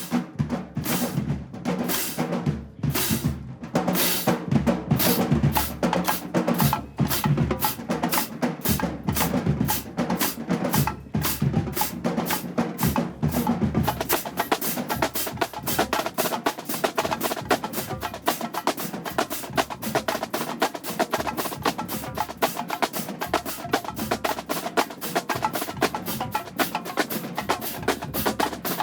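Marching band drumline playing a cadence: snare drums and bass drums beating a fast, steady rhythm, with the strikes becoming quicker and denser about halfway through.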